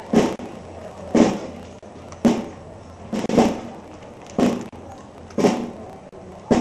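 Procession band's bass drum and cymbals beating a slow march, one heavy stroke about every second, six strokes, each ringing briefly.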